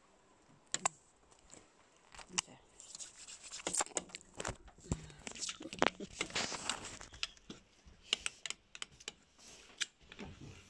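Handling noise: irregular clicks, taps and rustling scrapes, busiest from about two to eight seconds in.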